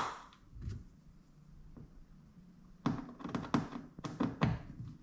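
Hands fitting a plastic tubing clamp and screw to a plastic kayak hull: a couple of faint taps, then a quick run of sharp knocks and taps near the end.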